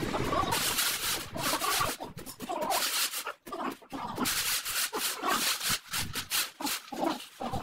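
Repeated gritty scraping as a screed bar and gloved hands are drawn over wet sand-cement floor screed, in irregular rasping strokes.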